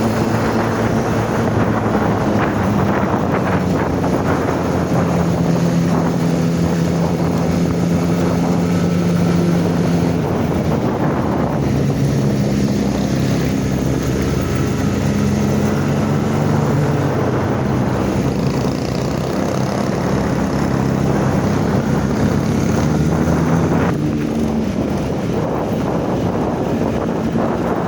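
A vehicle's engine running under way, its pitch stepping up and down as it changes speed, with wind buffeting the microphone.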